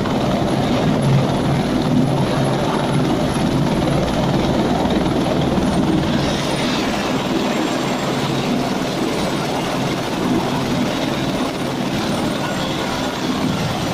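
Police helicopter on the ground with its rotor turning: steady rotor and turbine noise, with a thin high whine that drops slightly in pitch about six seconds in.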